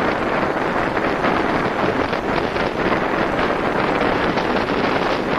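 Wind rushing over the microphone of a camera on a bicycle descending at about 40 km/h: a loud, steady rush of noise.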